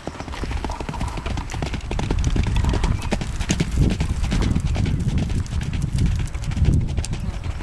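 Rapid hoofbeats of an Icelandic horse ridden at a fast gait on a gravel track. They grow louder over the first couple of seconds as the horse nears, then stay close and loud.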